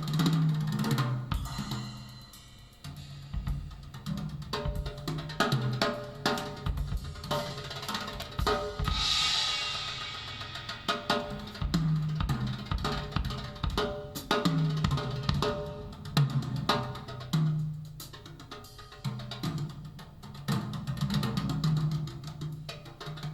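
Drum-led music played back through a handmade two-way loudspeaker: kick and snare hits over a low bass line, with a cymbal swell about nine seconds in.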